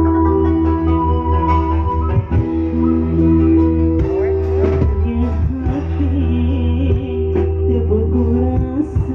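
Combo band music recorded on a phone: sustained electronic keyboard chords, guitar and a heavy bass line, with a voice singing a wavering melody in the second half.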